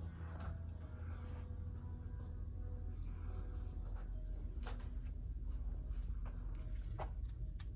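A high chirp at one pitch, each a quick run of pulses, repeating about twice a second, over a low steady hum with a few faint knocks.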